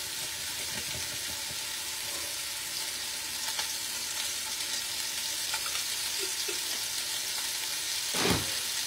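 Chicken and sausage sizzling steadily in hot sausage grease in a pot, with a few small clicks and one louder thud near the end.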